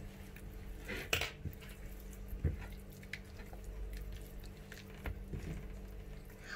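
A hand squishing spice paste into raw shark pieces on a ceramic plate: soft wet squelching with a few light knocks of fish and fingers against the plate, the sharpest about a second in.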